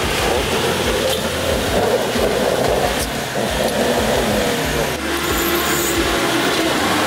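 Mitsubishi L200 pickup's engine running hard and revving, with the pitch rising and falling, as it pulls the truck up through deep mud.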